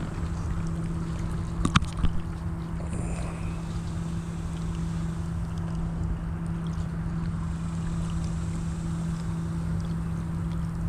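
Wind rumbling on the microphone over a steady low hum, with two sharp clicks about two seconds in.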